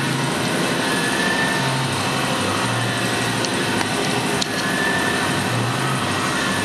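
CNC-controlled metal shaper running, its ram driving the tool back and forth inside the bore of a chucked steel workpiece. Steady machine noise, with a low hum and a faint whine that swell and fade every couple of seconds with the stroke.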